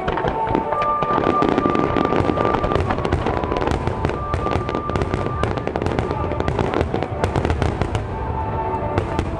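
Fireworks going off in a dense run of sharp crackling bangs, over music with long held notes.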